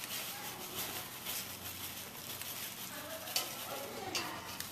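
Kitchen food-preparation sounds: a steady rustling stir with light clicks of utensils against a bowl or pan.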